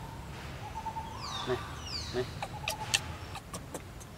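Forest birds calling: scattered short high chirps and two falling whistles, about a second and two seconds in, with a steady whistle-like tone coming and going.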